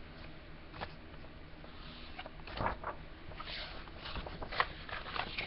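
Paper rustling and soft handling clicks as yearbook pages are turned and handled, a few short scrapes scattered over a quiet background.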